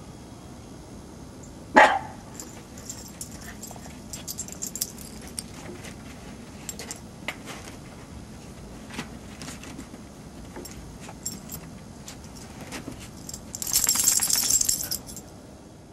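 Small dog giving one loud bark about two seconds in, then scuffling and rolling in fresh snow, with light scattered crunches and a short, louder rattling scuffle near the end.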